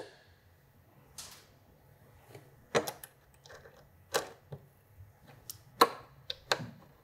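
Pliers working safety wire at a motorcycle tank-cover mount: a handful of short, light clicks and ticks, spaced irregularly with quiet gaps between them.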